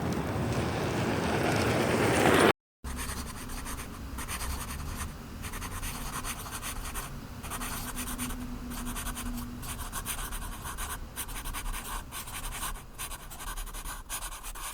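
Pen writing on paper: a run of short scratching strokes with small pauses. It follows a couple of seconds of busy background noise that cuts off abruptly.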